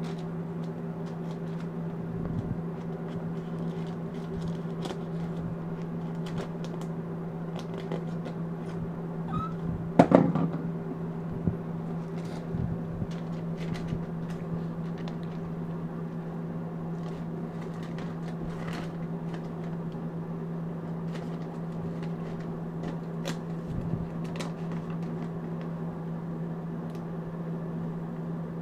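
Thin Bible pages rustling and crinkling in small clicks as a monkey paws at them and turns them, over a steady low hum. One brief louder sound comes about ten seconds in.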